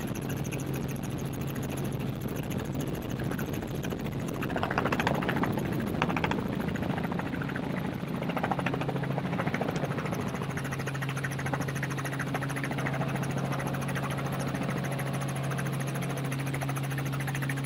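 Steady drone of a helicopter in flight. About four to ten seconds in, a louder, rougher rushing noise rises over it.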